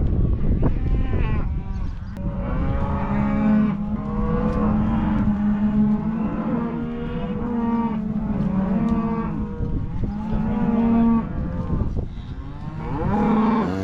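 Beef cows and calves mooing and bawling, many long calls overlapping one another, with a steady low rumble underneath.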